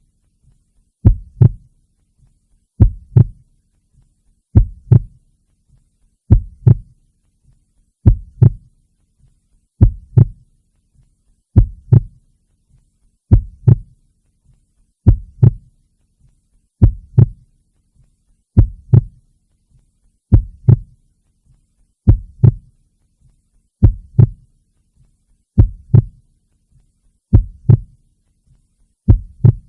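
Heartbeat: a slow, steady lub-dub double thump, low-pitched, repeating about every 1.75 seconds (some 34 beats a minute).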